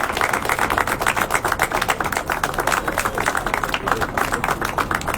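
Audience applauding, a dense run of hand claps that thins out slightly near the end.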